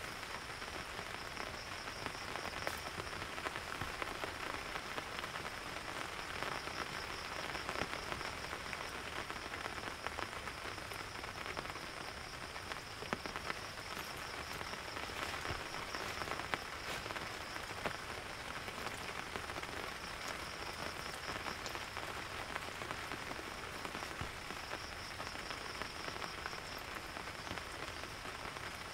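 Steady rain falling, with scattered sharper drop hits, over a high, pulsing chorus of calling animals.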